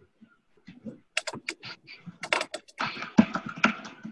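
Typing on a computer keyboard: a run of irregular key clicks in uneven bursts, heard over a conference-call line.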